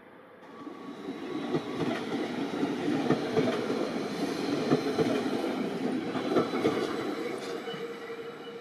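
A train passing, its wheels clattering with many sharp clicks over the track. It swells from about half a second in, is loudest through the middle, and fades near the end.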